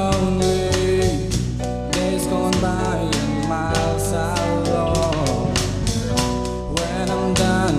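A small live band playing a song: a drum kit keeping a steady beat under electric guitar and keyboard chords.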